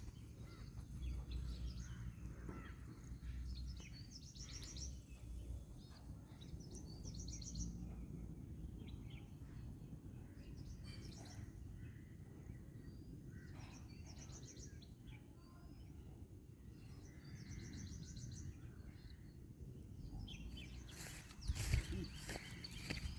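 A bird giving a short, high trilled call, repeated every few seconds over a low steady outdoor rumble. Near the end come a few louder knocks and rustles.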